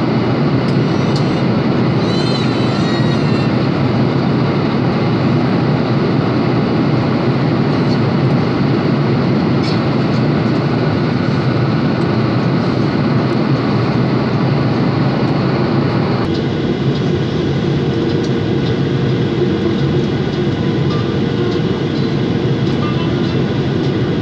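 Steady rushing hum inside the cabin of a Boeing 737-800 descending on approach to land: its CFM56-7B engines and the airflow past the fuselage, holding an even level throughout.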